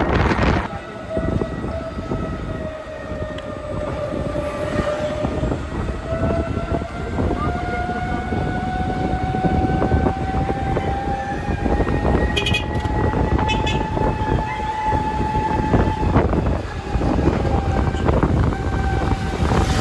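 Ride in a passenger tricycle: a steady whine from the vehicle's drive slowly dips and then rises in pitch with speed, over the rumble of tyres and wind.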